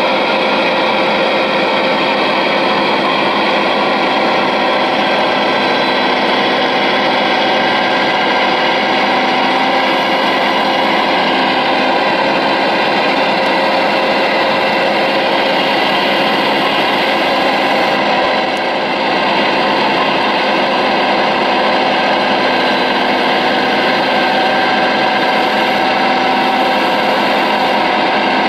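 Electric hydraulic pump of a radio-controlled Liebherr 970 model excavator whining steadily under load as the boom and grapple are worked, with a slight drift in pitch and a brief dip about two-thirds of the way through.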